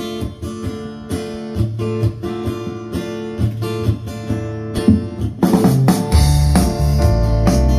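Live band playing a song's instrumental intro: a strummed guitar leads at first, then about five and a half seconds in the full band comes in, with drums and bass, and the music grows much louder.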